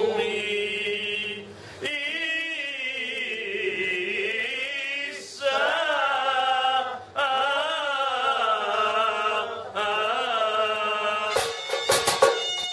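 A man singing a slow, free-rhythm folk song in long phrases with bending, ornamented pitch and short breaths between them. About a second before the end, a rope-tensioned drum starts being struck hard.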